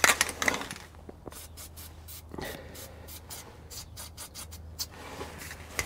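Aerosol can of white lithium grease spraying onto a rubber exhaust hanger: a faint hiss that stops and starts in short spurts, lubricating the rubber so it will slide off its hanger rod.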